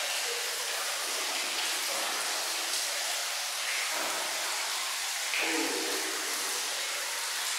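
Steady hiss of running water in a hammam, with faint voices now and then in the background.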